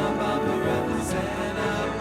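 Background music with sustained layered chords.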